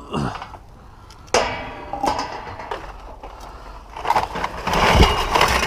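Plastic bags of aluminum cans and scrap steel clanking and rustling as they are handled and loaded into a car trunk. A sharp metallic clank rings out about a second and a half in, and the densest, loudest clattering comes in the last second and a half.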